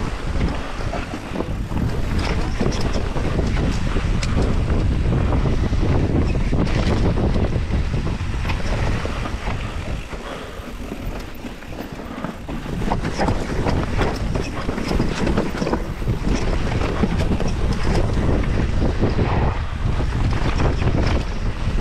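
Wind rushing over the microphone of a mountain bike descending a rough trail, with a constant rattle and many small knocks from the bike over rocks and roots. It eases for a few seconds about halfway through.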